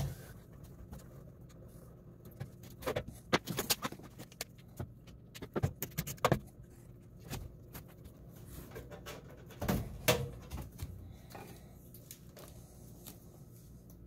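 Scattered clicks and light metallic clatter of hand tools working on the heat pump's run capacitor, taking it out with a stubby screwdriver; the knocks come in short clusters about 3, 6 and 10 seconds in, over a faint steady low hum.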